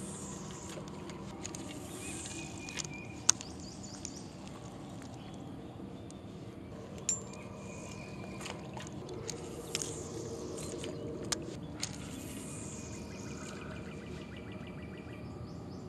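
Fishing reel being cranked during a retrieve, heard as several stretches of faint rapid ticking, with a few sharp clicks from the rod and reel, over a steady outdoor background.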